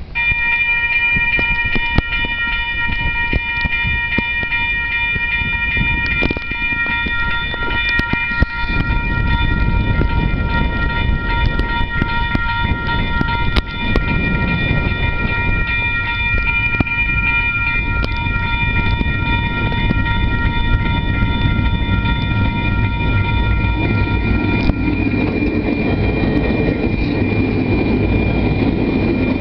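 Level crossing warning bell starting up and ringing steadily as the crossing activates, while the low rumble of an approaching train builds from about eight seconds in. The rumble grows heavier near the end as the train's lead DFB and DFT diesel-electric locomotives pass close by.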